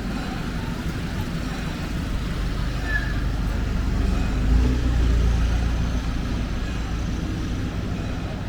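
Busy city street sound with a motor vehicle passing close by: a deep rumble builds, is loudest about halfway through, then fades, over a steady background of traffic and faint voices.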